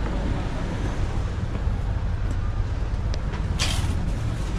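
Outdoor street noise: a steady low rumble, with a short hiss about three and a half seconds in.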